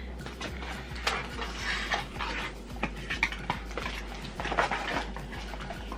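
Crinkling and rustling of Yu-Gi-Oh! trading-card packaging being handled and opened, with scattered light clicks and taps.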